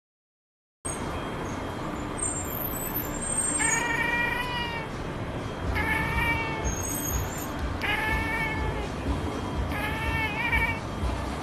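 Domestic cat chirping at a pigeon it is watching, the call of a cat stalking prey: four drawn-out chirping calls about two seconds apart.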